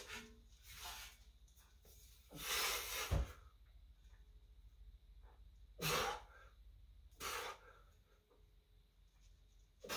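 A weightlifter's sharp, forceful breaths, four in all and spaced a second or two apart, as he presses a strongman log. A low thud comes about three seconds in as the log is brought to his chest.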